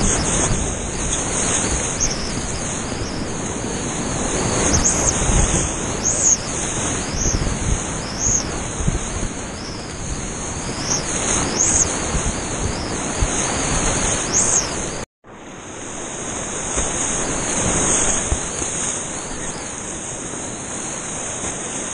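Whitewater rapids rushing and churning around a kayak, with the splash of paddle strokes and a steady high hiss over it. The sound cuts out abruptly about fifteen seconds in and then comes back.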